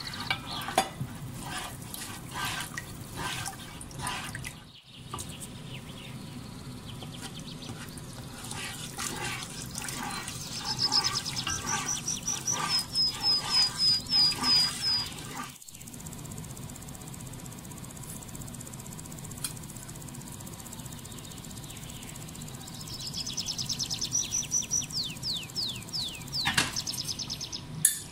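A plastic slotted spatula stirring a thick milk-and-flour sauce in a pot, with repeated wet stirring strokes. A bird sings high, quickly repeated chirping phrases over it, loudest about halfway through and again near the end.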